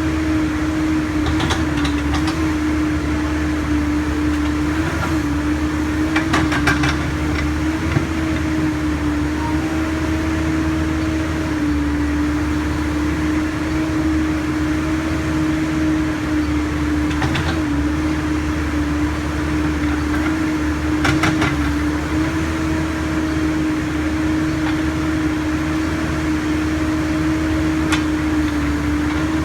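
Backhoe's diesel engine running with a steady hum over a low rumble, the pitch sagging briefly every several seconds as the hydraulics take load. A few short clatters, the bucket working, come through at times.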